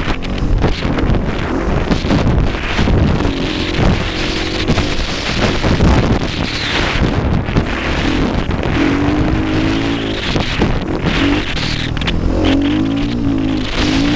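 KTM dirt bike engine revving up and down under load on a soft sand track, with wind buffeting the microphone.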